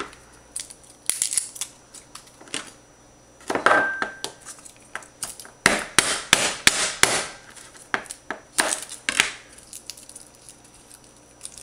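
Irregular knocks and taps of a kitchen knife on a plastic cutting board as garlic cloves are smashed flat and peeled, coming in small clusters with short pauses between.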